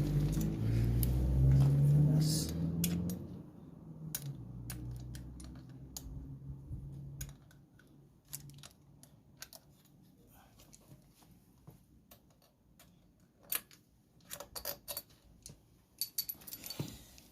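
Scattered light metallic clinks and taps from tools and engine parts as the loosened cylinder head of a CG 150 motorcycle engine is worked off, bunching into quick runs about two thirds of the way through and near the end.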